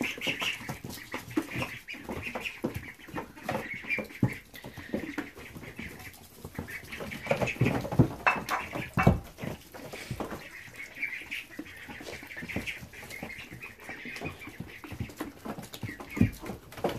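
Ducklings peeping on and off while they peck and tear at lettuce, with quick bill clicks and rustling in wood shavings. A few louder knocks come about halfway through.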